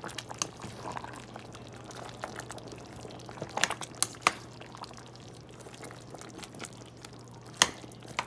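A spoon stirring thick peanut-sauce stew with chunks of eggplant in a stainless steel pot: a wet sloshing, with a few sharp knocks of the spoon against the pot around the middle and one more near the end.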